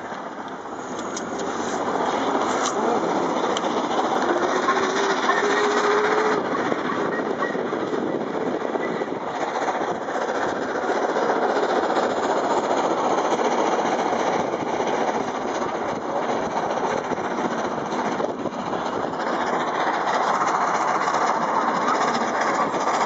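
LMS Stanier 8F 2-8-0 steam locomotive 48151 running at speed with its train, heard from a moving car alongside, mixed with the car's steady road and wind noise. The noise grows louder over the first two seconds and then holds steady.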